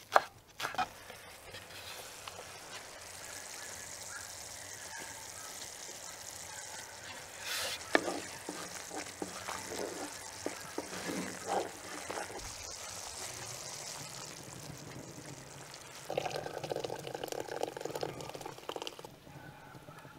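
A few sharp knife chops on a wooden cutting board, then a creamy sauce bubbling in a metal pan with a steady hiss while a wooden spatula stirs and knocks against it. Near the end the thick sauce pours from the pan into a glass bowl.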